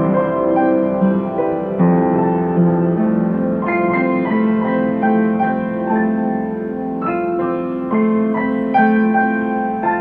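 Slow, gentle piano music: single notes and chords struck and left to ring, a new note or chord about every second.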